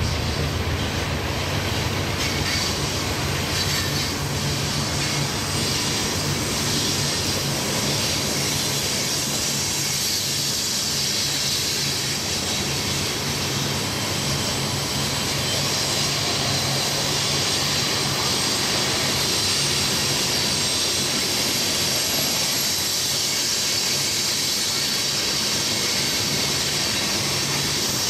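Oil tank cars of a long freight train rolling steadily through a curve: a continuous rumble of wheels on rail with a high hiss and squeal from the wheels in the curve. A low hum fades out in the first half.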